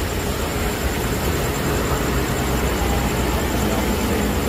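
Steady road traffic and vehicle engine noise, an even low rumble, with a low steady hum joining near the end.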